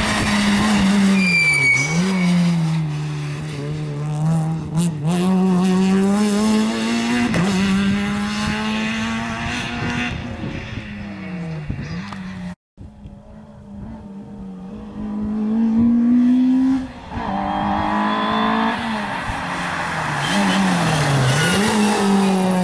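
Rally car engines at high revs. A Citroën rally car passes at full throttle, its engine note dropping briefly at each lift or gear change and climbing again. After a short cut, a Peugeot 205 rally car accelerates up through the gears and changes gear as it passes.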